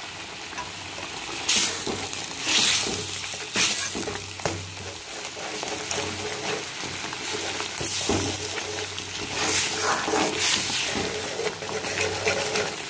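A thick tomato masala, a ground paste with sambar powder just added, sizzling and bubbling in oil in a metal kadai while a metal spatula stirs it. A few louder scrapes of the spatula against the pan stand out, three in the first few seconds and one more later.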